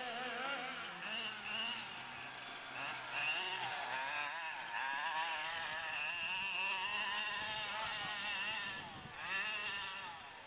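Two-stroke petrol engine of a 1:5-scale FG RC monster truck, revving up and down as the truck drives over the field. It fades away near the end.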